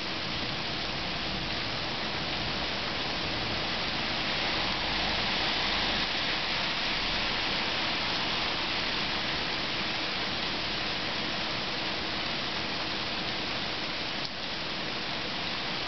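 Thunderstorm downpour: rain falling steadily, swelling a little about four to seven seconds in.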